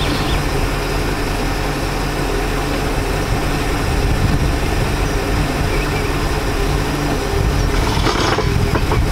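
Mercruiser sterndrive engine idling steadily, with a short clunky noise about eight seconds in as the shift lever is worked into gear, which the owner takes for the Alpha One outdrive not going into gear all the way.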